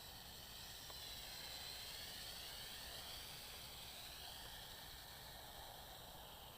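Faint high whine of a JXD 509 quadcopter's small electric rotors in flight, its pitch wavering up and down as the throttle changes, over a steady hiss.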